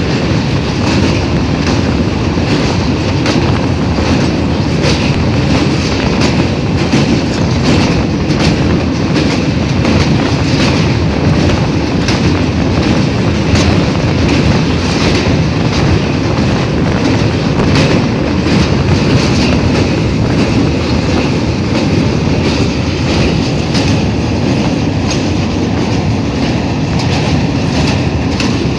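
Indian express passenger train running over a steel truss railway bridge, heard from aboard a coach: a loud, steady rumble with a continual clatter of wheel clicks.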